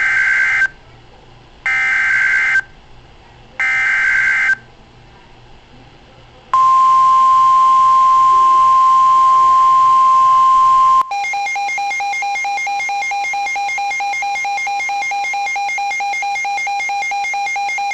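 Emergency Alert System / NOAA Weather Radio alert opening for a severe thunderstorm warning. First come three short bursts of the screechy two-tone SAME header data, each under a second long and about a second apart. Then the steady single-pitch weather-radio warning alarm tone sounds for about four and a half seconds, and about eleven seconds in it gives way to a lower alert tone with a slight even pulse.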